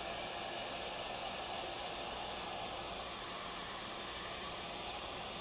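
Heat gun blowing a steady hiss into a metal pouring pot, keeping gel wax melted while it is poured.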